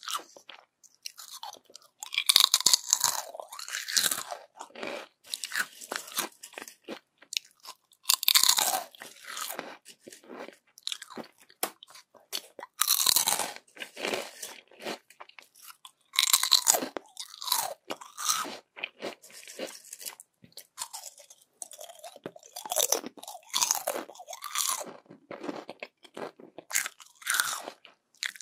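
Close-miked crunching of crisp yam chips being bitten and chewed. It comes in loud crackling bouts every few seconds, each one followed by quieter chewing crunches.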